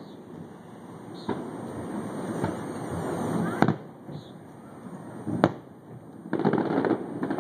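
Aerial fireworks shells bursting in the distance: a light bang about a second in, then two loud sharp bangs about halfway and about three-quarters through. Between them runs a steady noisy background.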